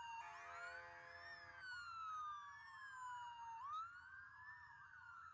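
Several police motorcycle sirens wailing at once, faint, their pitches overlapping: one slow wail falling and then sweeping back up about three and a half seconds in, another rising and falling faster. A steady lower tone sounds for over a second near the start.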